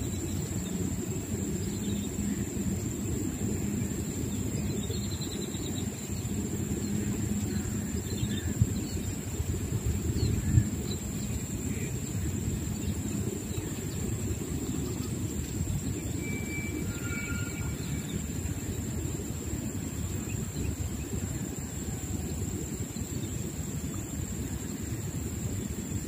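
Steady low outdoor rumble with a thin, steady high tone over it, and two soft knocks about nine and ten and a half seconds in.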